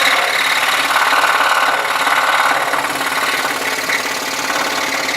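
Scroll saw running steadily, its reciprocating blade cutting a curve through a wooden practice piece. The cutting is loudest from about one to two and a half seconds in.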